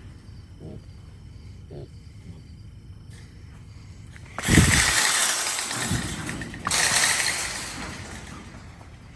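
Wild hogs in a steel trap and trailer: a sudden heavy thud about halfway in, then a long harsh clatter. A second harsh burst comes about two seconds later, and each fades out over a couple of seconds.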